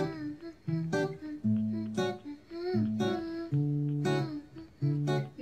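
Background music: an acoustic guitar plucking a melody of separate held notes.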